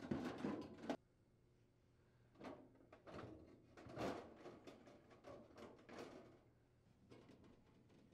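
Faint handling sounds of a plastic freezer evaporator access panel being shifted into position: light scattered clicks and rustling knocks of plastic against the freezer liner.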